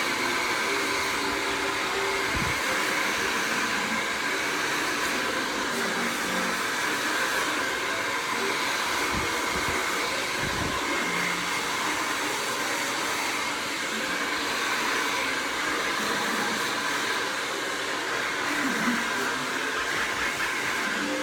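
Hair dryer running steadily, a constant blowing whir with no change in speed.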